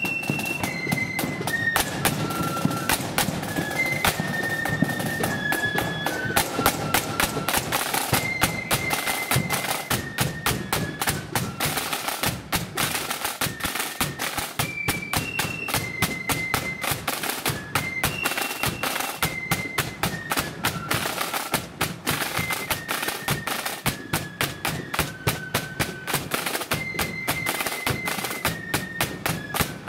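Marching flute band playing: a high flute melody in stepping phrases over rapid snare drumming and a bass drum beat.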